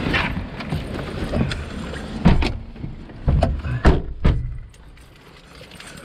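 Someone getting into a car and shutting the door: a series of knocks and thumps, the loudest about two and four seconds in. After them the noisy background drops away to the quiet of the closed cabin.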